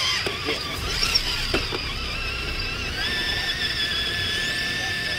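High-pitched whine of an RC crawler truck's electric motor and gears, wavering in pitch at first and holding steady from about three seconds in.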